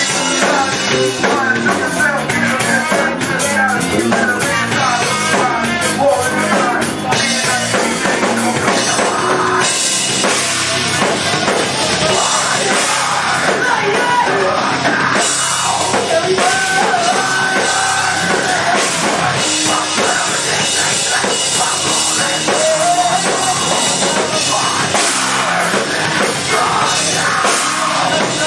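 Live band playing loud heavy rock with a pounding drum kit, electric bass and guitar, a trumpet and vocals into microphones.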